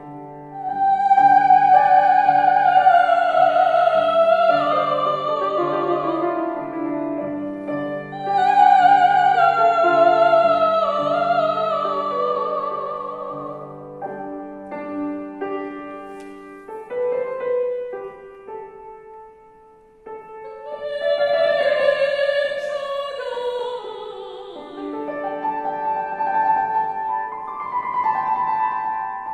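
A woman singing in a classical, operatic style with vibrato, accompanied by a grand piano. Her long phrases fall in pitch. About two-thirds of the way through, her voice drops out briefly while the piano plays on more quietly.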